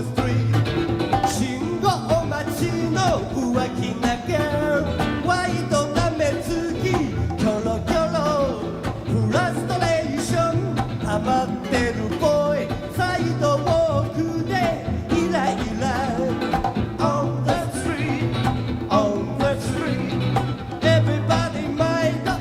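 Live music from a guitar duo playing an upbeat rock and roll number, heard as an old cassette tape recording. No lyrics are made out, so the lead line may be guitar rather than voice.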